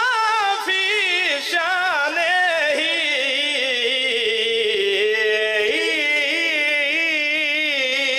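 A man's voice chanting one long, unbroken melismatic phrase into a microphone, its pitch wavering in quick ornaments. The pitch sinks slowly, then lifts again a little past halfway.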